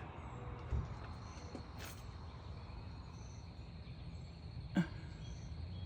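Quiet outdoor background with a steady low hum and faint, short high chirps from small birds every second or so. There is a sharp tick about two seconds in and a brief knock near the end.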